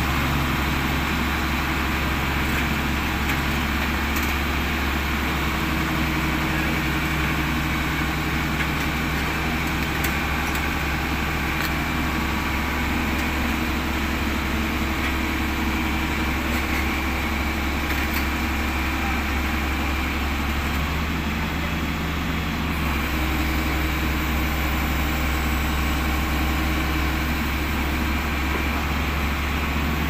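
Heavy diesel engine idling steadily, the low hum of the lowbed truck hauling the excavator.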